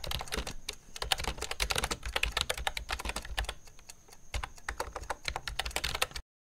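Typing sound effect: rapid, irregular keystroke clicks that cut off suddenly near the end.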